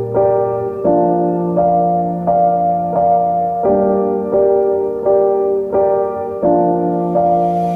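Background piano music: a slow, gentle pattern of sustained chords with a new note struck about every 0.7 seconds.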